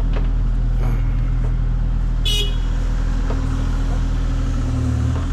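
Excavator engine running steadily with a low hum, and a brief high squeak about two seconds in.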